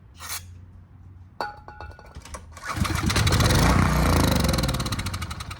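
Small portable generator engine catching about two and a half seconds in, running loudly for a couple of seconds, then fading as it fails to keep running, which the owner puts down to a clogged carburetor jet and old gas. A metallic click comes just before it starts.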